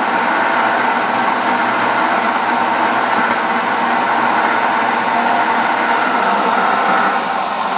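PowerED PBL400 mini lathe running with its spindle at about 1000 RPM: a steady motor and gear whine. A click and a slight drop in level come near the end.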